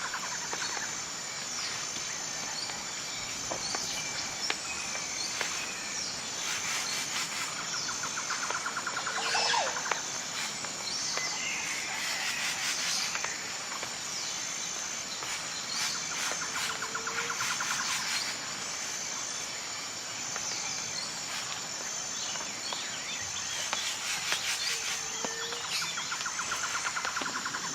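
Forest ambience: insects keep up a steady high-pitched whine, and a pulsing trill comes back about every eight seconds. Birds give scattered short calls over it.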